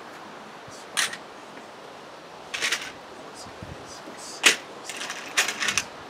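Cordless power driver run in several short bursts, driving screws into the wooden porch railing, with a sharp knock about halfway through.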